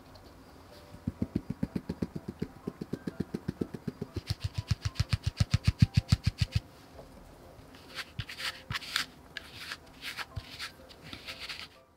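Fine mesh sieve shaken over a glass bowl to sift flour, tapping in a fast, even rattle of about seven strokes a second, stopping after about five seconds. A handful of uneven, scratchier taps follows near the end.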